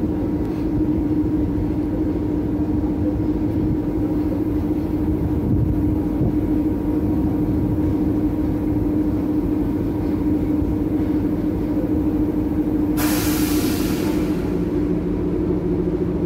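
SM42 diesel-electric shunting locomotive running steadily while moving a rake of passenger coaches, its engine giving a constant droning hum. About 13 seconds in, a loud hiss of released compressed air lasts a second or so.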